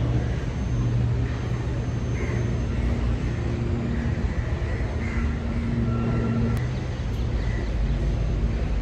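Steady low outdoor rumble with no speech or music, fairly loud and even throughout.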